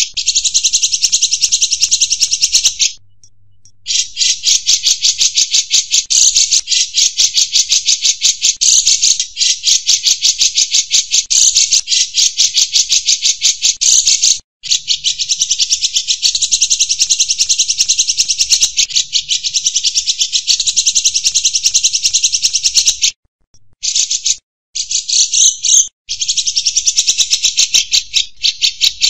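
Insect buzzing in a fast, even, continuous pulsing trill, high-pitched and loud, with a pause of about a second near the start, a brief dropout about halfway, and a stretch of stop-start near the end.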